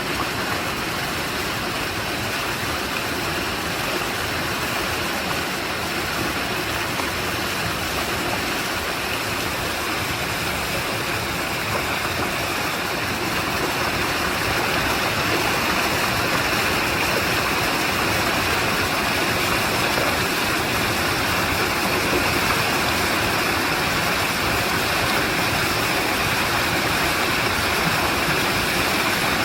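Clear mountain stream rushing and splashing over rocks, a steady water noise that grows a little louder about halfway through.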